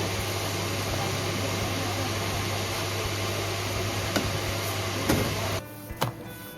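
A steady mechanical hum with a low drone under an even hiss, cutting off suddenly about five and a half seconds in, after which come a couple of sharp clicks.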